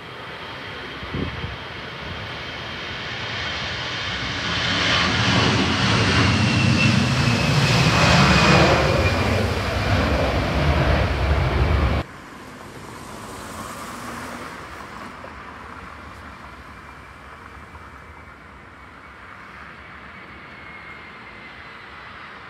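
Jet airliner engines on the runway, swelling to a loud roar with a whine that slowly falls in pitch as the aircraft passes. The roar cuts off abruptly about halfway through, and fainter jet noise with a falling whine follows.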